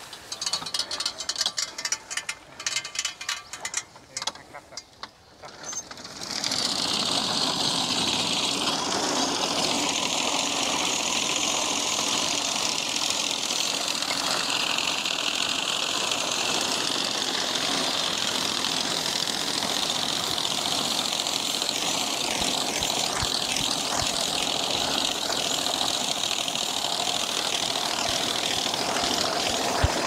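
Horse-drawn sickle-bar mowing machine cutting thick hay, its reciprocating knife chattering through the guards in a steady, rapid clatter that starts about six seconds in. Before that there are a few seconds of scattered brushing and rustling.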